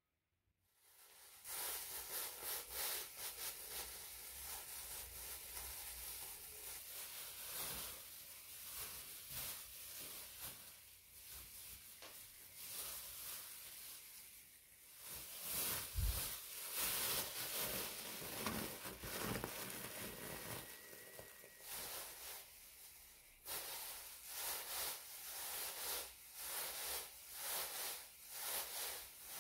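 Thin plastic bag crinkling and rustling as it is crumpled, shaken and swung through the air, an unbroken run of crackles that starts about a second in, with a brief dip about three quarters of the way through.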